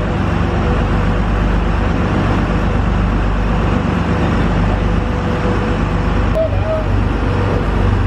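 Sportfishing boat's engine running steadily underway, a constant low drone, under the rushing noise of the wake and wind.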